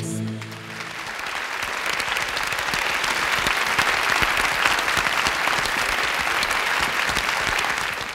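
Studio audience and judges applauding, a dense clapping that builds over the first two seconds and then holds steady. The last held chord of the music dies away in the first second.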